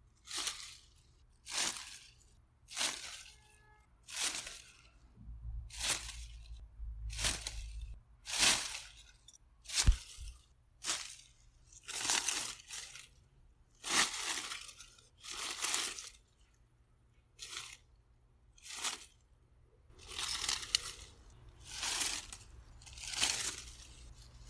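Grass and leaves rustling in a run of short swishes, roughly one every second or so, with a couple of brief pauses. A single sharp low bump sounds about ten seconds in.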